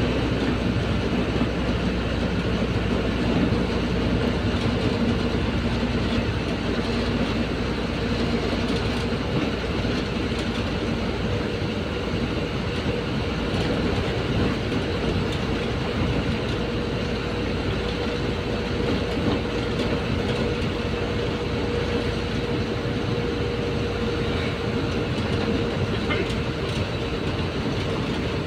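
Cabin noise of an APSRTC Pallevelugu diesel bus cruising on an open highway: steady engine drone and road noise with a steady whine throughout.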